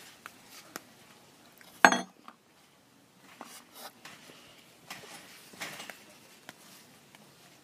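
Scattered soft thumps, with one sharp, loud knock about two seconds in that rings briefly.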